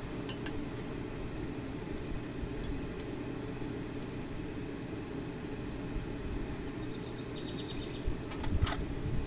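Steady low rumble of a running forge, with a few faint sharp metallic clicks and a brief fast high ticking about seven seconds in.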